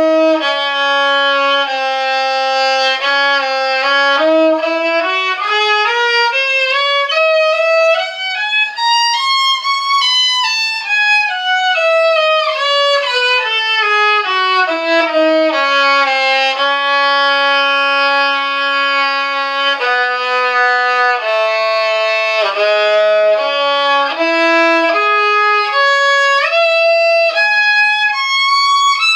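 Solo violin playing a two-octave C-sharp minor scale, one bowed note per step: it climbs from the low C-sharp to the top note about ten seconds in and comes back down by about sixteen seconds, holds the low note, dips a few notes below it, then starts climbing again near the end.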